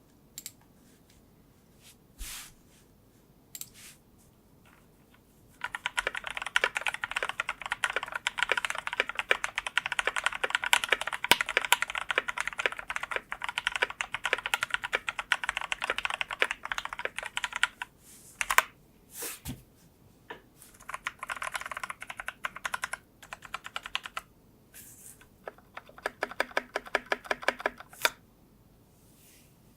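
Typing on a Leopold FC660M mechanical keyboard with lubed YOK Red Panda tactile switches on MX Clear stems and GMK doubleshot keycaps. A few single keystrokes, then a long run of fast typing from about six seconds in to about eighteen, followed by two shorter bursts after pauses.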